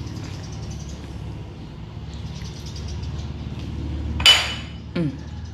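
A single sharp clink of tableware about four seconds in, then a short squeak that falls in pitch, over a steady low hum.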